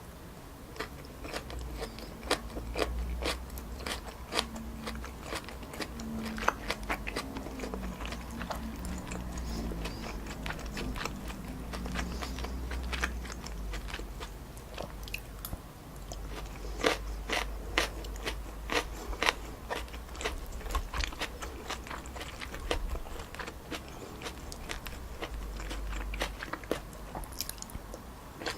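Close-miked chewing and biting of chewy wide glass noodles stir-fried with pork neck and vegetables, with frequent wet mouth clicks and smacks and occasional crunches.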